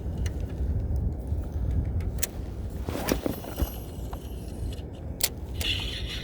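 Shimano 22 Stella 4000XG spinning reel being cranked on a loaded retrieve, giving irregular sharp clicks and a rattling knock about three seconds in, over a steady low rumble. The owner takes this 'koto-koto' knocking under lure tension for an abnormal fault in the reel.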